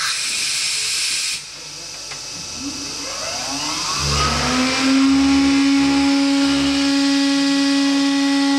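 IMA BIMA 600 CNC machining centre: a loud hiss that cuts off suddenly about a second and a half in, then a spindle motor spinning up with a rising whine that levels off about halfway into a steady high hum, with a few low pulses underneath.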